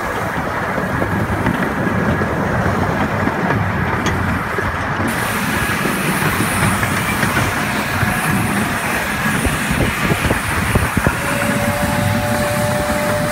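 Ride-on miniature steam train running along the track: a steady rumble and clatter of the wheels on the rails, with a steam hiss joining about five seconds in. Near the end a thin, steady squealing tone sounds over it.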